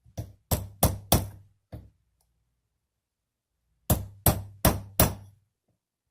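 Small hammer tapping metal during work on an AR-15 bolt. There are four quick sharp taps and a lighter fifth, a pause of about two seconds, then four more quick taps.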